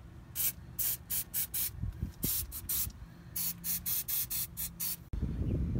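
Aerosol can of penetrating lubricant spraying in a rapid series of short hissing bursts, about fifteen in three clusters, soaking the wheel studs on the hub to loosen them. Near the end it gives way to a low rumbling noise.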